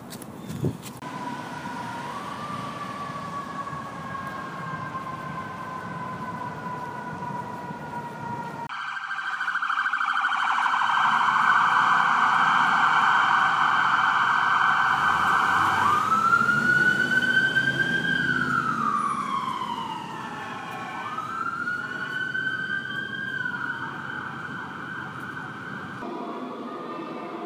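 Siren sounds cut together: first a long tone that slowly drops in pitch, then an abrupt switch to a louder, denser siren sound. After that come two wails that rise and fall, and the sound cuts off sharply near the end.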